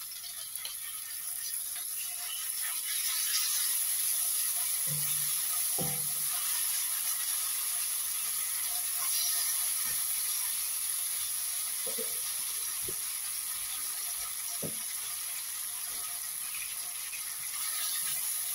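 Onions and ginger-garlic paste frying in oil in a steel karahi: a steady sizzle, with scattered knocks and scrapes of the spatula against the pan as it is stirred.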